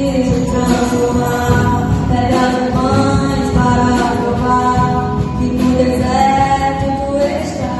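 Christian worship song playing: singing voices holding long notes over band accompaniment.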